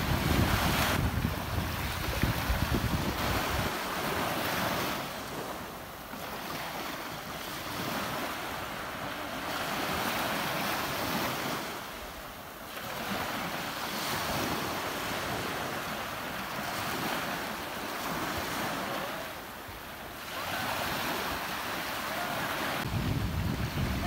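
Ocean surf: waves breaking and washing in as a steady hiss that swells and eases every several seconds. A deeper low rumble sits under it in the first few seconds and comes back near the end.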